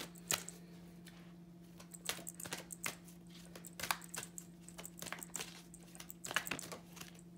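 Oracle cards being shuffled and handled, a run of irregular soft clicks and taps, over a steady low hum.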